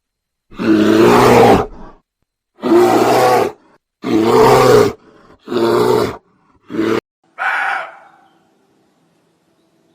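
A wild animal's roars: six loud calls in quick succession, the first lasting over a second and the last, about seven seconds in, weaker, then quiet.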